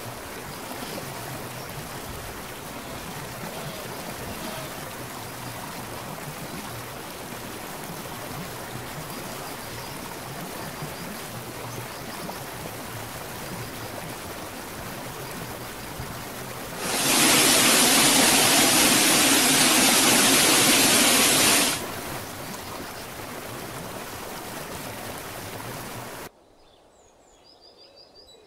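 Steady rushing of a mountain stream cascading over boulders. For about five seconds in the middle the rush of falling water becomes much louder. Near the end it cuts off suddenly, leaving a quiet background with faint bird chirps.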